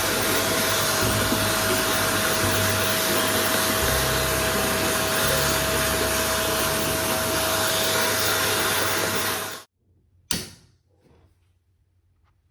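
An electric motor blowing air runs steadily with a constant whine, then cuts off abruptly a little under ten seconds in. A single sharp click follows.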